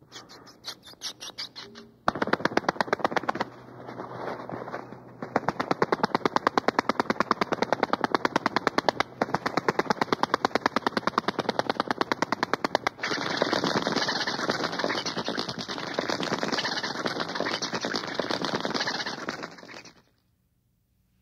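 Sound-effect recording of a rapid, continuous rattle of sharp clicks, growing louder about two seconds in and turning denser and steadier past the middle, then cutting off suddenly about a second before the end.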